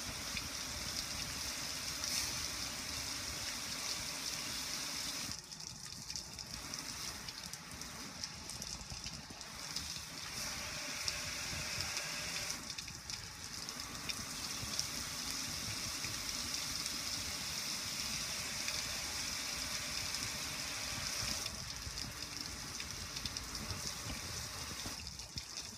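Water from a hose spraying onto a metal gas grill, a steady hiss and splash with water running off it. The spray eases briefly about five seconds in, again around thirteen seconds, and near the end.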